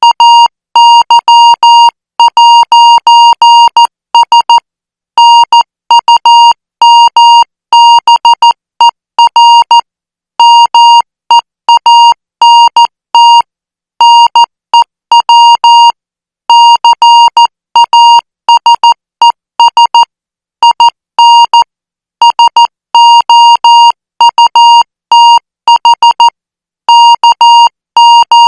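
Morse code practice signal sent at 14 words per minute: a single-pitched beep keyed on and off in dots and dashes, with short gaps between letter groups.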